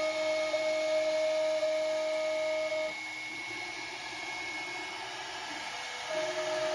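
A CNC router's 2.2 kW air-cooled spindle spinning a 60-degree V-bit as it engraves lines into a wooden board: a steady high whine over a hiss. It drops quieter about three seconds in and comes back near the end.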